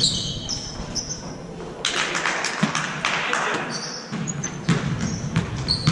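Basketball being played on a hardwood gym floor: short high sneaker squeaks and a scatter of thuds from feet and the ball, echoing in the large hall.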